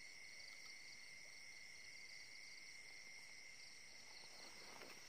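Faint, steady chirring of crickets and other night insects, a high continuous trill with a quicker pulsing one above it. Near the end, soft rustling steps through dry grass join in.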